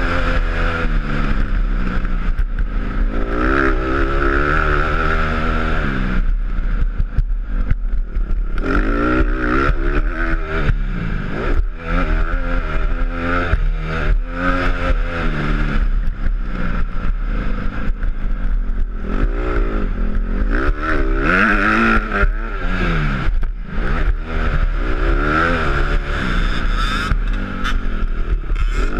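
Honda CRF150 dirt bike's single-cylinder four-stroke engine being ridden hard, revving up and dropping off over and over as the throttle is opened and shut, with the pitch climbing through each gear.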